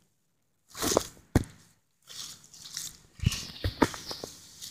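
Irregular rustling and crunching in grass and dry fallen leaves, with a few sharp knocks and clicks. It starts after under a second of dead silence.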